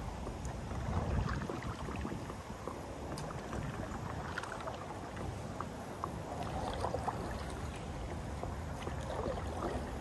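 Water lapping and splashing against a kayak hull, with many small scattered ticks and trickles. A steady low rumble of wind on the microphone sits underneath.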